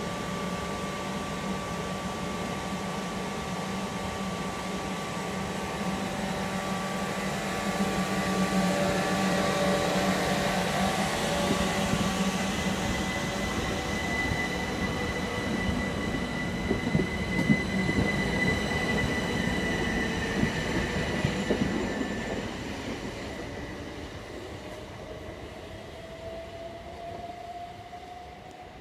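Southern Class 377 electric multiple unit pulling out of the platform. Steady electric whines build as it gets under way, with some wheel clicks and squeal around the middle. Near the end a whine rises in pitch as the train accelerates and fades into the distance.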